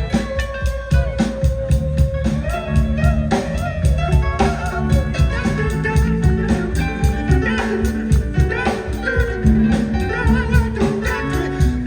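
Live band jamming: a guitar melody with bent notes over a busy drum kit and a low bass line, in a jazz-funk groove.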